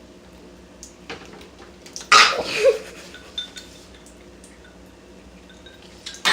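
A person, having just taken hot sauce into his mouth, lets out a sudden harsh blast of breath just after two seconds in, with a short grunt: a reaction to the burning heat. Faint clinks of the cup come before it.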